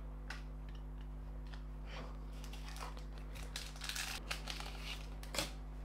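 A trading-card pack wrapper crinkling and tearing in the hands as the pack is opened, in irregular crackles that pick up about two seconds in and peak near the end, over a steady low hum.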